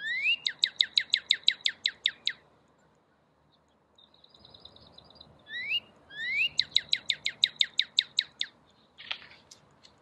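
Northern cardinal song played through the small speaker of an electronic bird-song book. There are two phrases a few seconds apart, each opening with a couple of rising slurred notes and running into a fast series of about a dozen sharp downslurred whistles.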